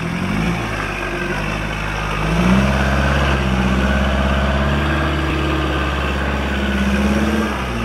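Toyota Land Cruiser BJ73's four-cylinder diesel engine working under load in mud. The revs rise about two seconds in, hold steady, and fall back near the end.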